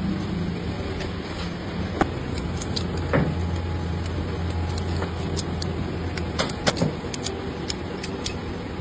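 Workshop machinery: a steady low motor hum, with light clicks scattered through the second half and a few sharper knocks.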